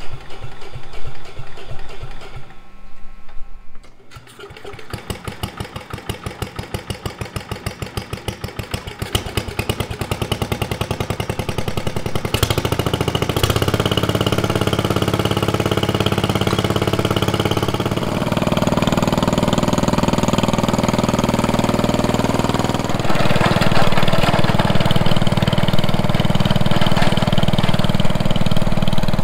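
The single-cylinder engine of an old International Harvester Cub Cadet "Original" lawn tractor being started and brought to life. Its firing pulses quicken over several seconds until it settles into steady running, and its speed steps up twice later on. This is the first run of a machine its owner did not expect to run.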